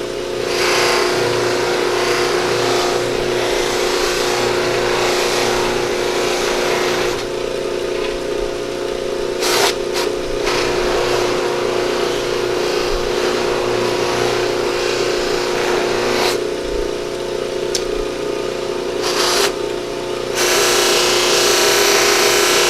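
Lathe-driven cloth buffing wheel spinning at 1750 RPM with a steady motor hum, and long stretches of hiss each time a deer antler piece is pressed against the wheel charged with blue polishing compound; the hiss stops briefly several times and is loudest near the end.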